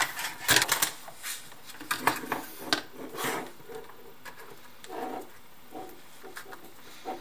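Handling noise from the opened plastic speaker base and its power cable being moved about: a run of short clicks and light knocks, busiest in the first three or four seconds, then fainter.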